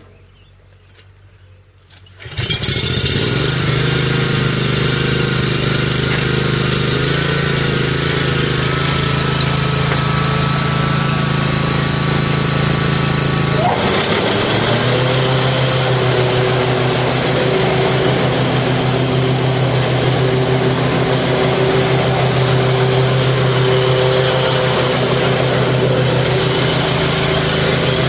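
15 horsepower Kawasaki engine of an Exmark 48 Viking walk-behind hydro mower starting right up after a few faint clicks, about two seconds in, then running steadily. About halfway through, its note briefly dips and changes, then it settles and runs steadily again.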